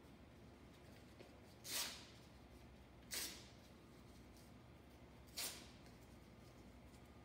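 A small piece of paper torn by hand: three short rips, the first a little under two seconds in and the last about halfway through, over a quiet room.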